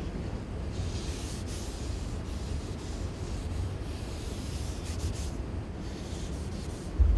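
A hand and smoothing pad rubbing and sliding over the surface of a full-size clay car model, a soft swishing hiss that comes in passes, over a steady low rumble. A single low thump near the end.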